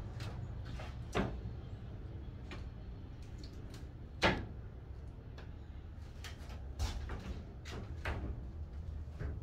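A few short, scattered knocks and creaks from someone moving about inside a stripped-out wooden travel-trailer shell, the loudest about four seconds in, over a low steady rumble.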